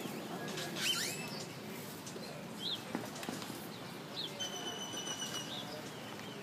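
Birds calling over a steady low hum of street traffic: short chirps, a rising call about a second in, and a long held whistle about four seconds in.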